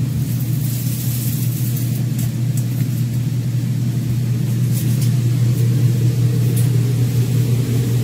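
A steady low machine drone, with a few faint knocks from the plastic portable washing machine being lifted and handled.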